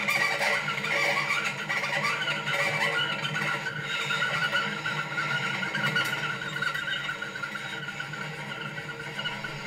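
Invented instruments, a bowed metal rod and a long tube with a large resonator worked by hand, make a sustained squealing drone: a low steady hum under a high, rapidly wavering tone, easing slightly near the end.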